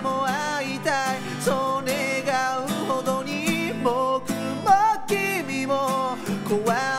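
A man singing in Japanese while strumming his own acoustic guitar.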